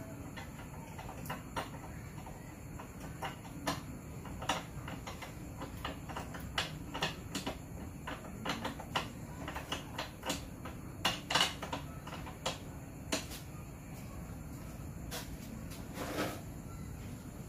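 Irregular clicks and light knocks of parts being handled and fitted onto a Kreg Mobile Project Center workbench, over a steady low hum. The knocks are densest in the middle stretch, with a louder knock near the end.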